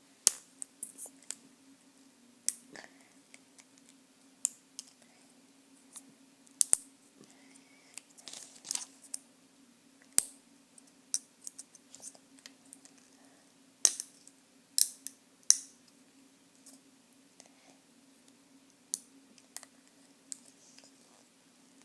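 Eye-drop packaging being handled and peeled open: irregular sharp clicks and crinkles of cardboard and plastic, a few at a time, over a faint steady hum.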